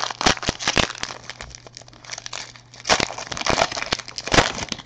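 Crinkling and clicking of trading cards being handled and flipped through, in irregular bursts with a few louder clusters of sharp crackles.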